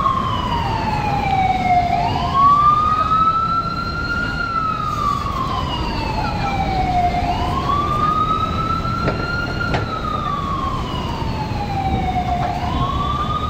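A siren wailing in slow cycles, each rising quickly in pitch and then falling away over about three seconds, repeating about every five seconds, over a steady low rumble.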